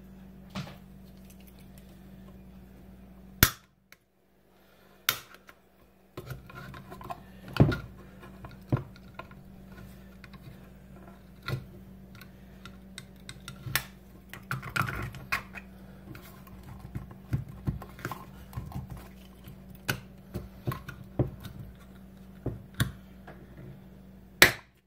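Plastic end cover of a Grundfos circulator pump being pried and worked loose by hand and with a small tool. It makes scattered clicks, taps and scraping, with a few sharp louder clicks, as the snap-in cover resists coming off.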